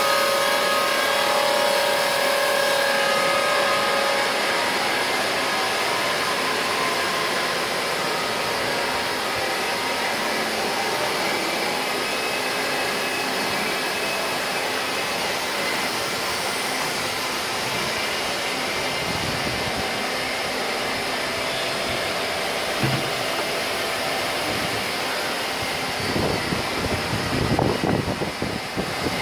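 Steady, dense whirring of CNC lathes and machining centres running together, with faint steady whining tones in it. Near the end, a few seconds of irregular rumbling knocks.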